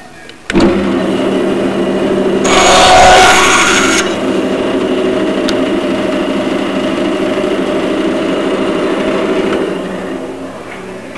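RIDGID wet/dry shop vacuum switched on, its motor starting suddenly and running with a steady whine. About two seconds in there is a louder rush of air lasting about a second and a half, and near the end the sound falls away.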